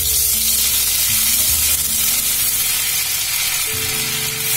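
A lump of butter sizzling as it melts in hot oil in a kadhai, a loud steady hiss that starts suddenly as the butter goes in.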